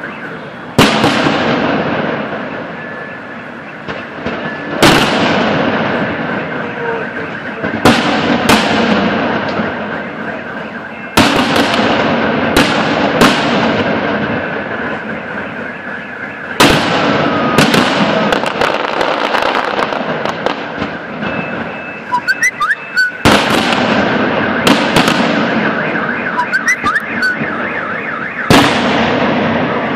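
Aerial fireworks shells bursting overhead: about a dozen sharp bangs at uneven intervals, each trailing off in a rolling echo, over steady crackling.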